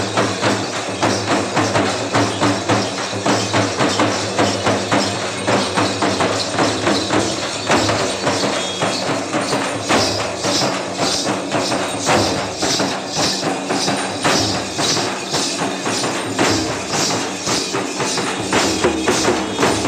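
Live drumming for a Gond Dandar dance: a group of large drums beaten with sticks in a fast, steady rhythm, with jingling that gets sharper about halfway through.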